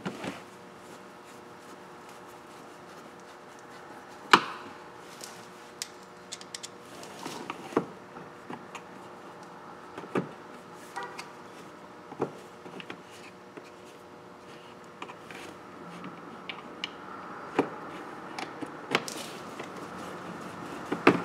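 Scattered clicks, taps and rubbing of hand tools and plastic dashboard trim as screws are started with a Phillips screwdriver into plastic clips. There is a faint steady hum underneath, and the sharpest click comes about four seconds in.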